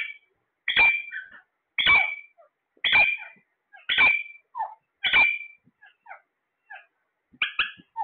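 Alexandrine parakeets calling: a loud, harsh call repeated about once a second, five times, then softer short chirps and a quick pair of loud calls near the end.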